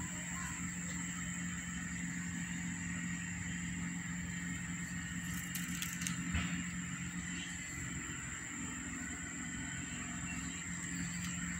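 Steady low background hum with a faint high-pitched whine over it, and a faint click about six seconds in.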